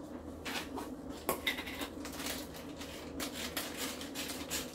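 Light clicks, taps and rustling from handling small plastic food containers and their lids, with one sharper click about a second in.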